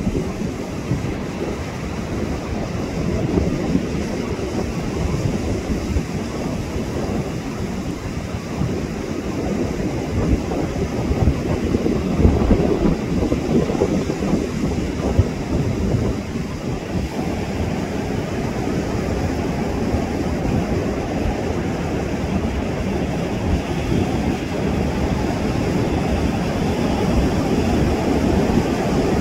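Ocean surf rushing onto the beach, mixed with wind buffeting the microphone in a steady, low rumble.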